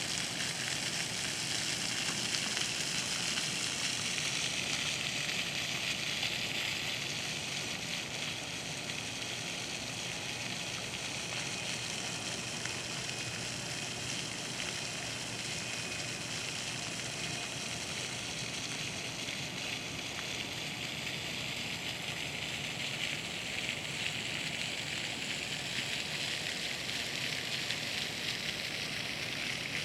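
Park water fountain running, a steady hiss of splashing water, slightly louder in the first several seconds.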